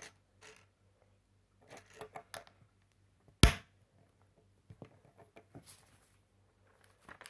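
Plastic LEGO bricks clicking and being handled, with one sharp snap about three and a half seconds in as a brick is pressed onto the build. Light taps follow, and a paper rustle comes as an instruction booklet page is turned.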